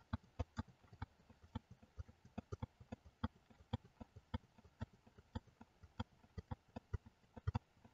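Faint clicks of computer keys and mouse buttons, unevenly spaced at about three or four a second.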